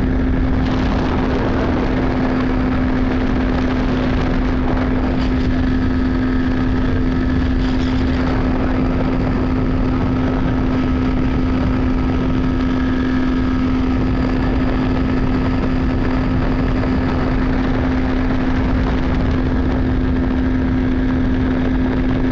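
Evinrude 70 hp two-stroke outboard motor running at a steady throttle, driving a bass boat under way: one unchanging engine note over a constant rush of noise.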